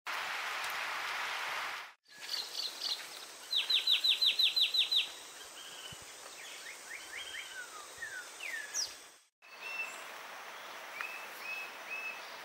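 Wild birds calling over steady forest background hiss, in a few short cuts. The loudest is a fast run of about nine sharp, falling notes, followed by scattered chirps and slurred whistles, and near the end a few short, even whistled notes.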